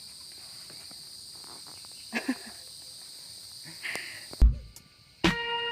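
Steady high-pitched insect drone of mountain forest, with a few soft footsteps on the trail. A loud thump about four and a half seconds in is followed by an abrupt cut, and music with held notes starts just before the end.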